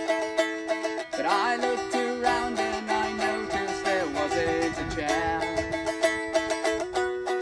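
A small long-necked stringed instrument being plucked and strummed in held notes, with a wavering sung line over the strings for a few seconds after about a second in.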